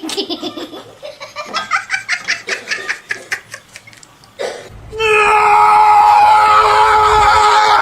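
A person laughing in quick, rhythmic bursts, then, about five seconds in, a loud, long cry held on a steady pitch.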